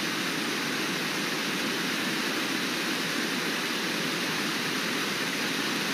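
Whitewater river rapids rushing with a steady, even roar.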